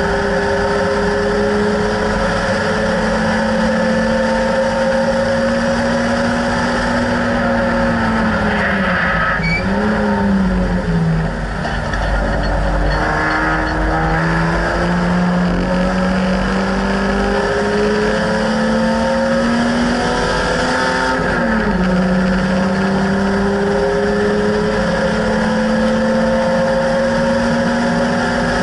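BMW E30 race car's engine under hard acceleration, heard from inside the stripped cabin, its pitch climbing steadily. The revs fall and climb again twice, about nine seconds in and about twenty-one seconds in.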